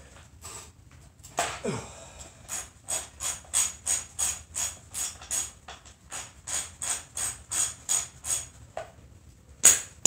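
Socket ratchet clicking in an even run of about four clicks a second as the spark plug is backed out of an Echo SRM 225 string trimmer's engine. One louder sharp click comes near the end.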